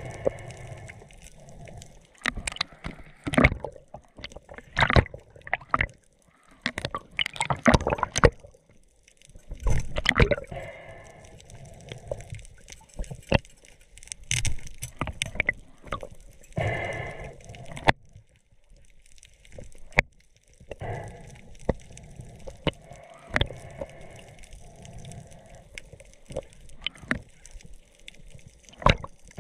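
Underwater gurgling and sloshing in irregular bursts, with scattered sharp clicks and knocks, as a speared moray eel thrashes on the spear shaft.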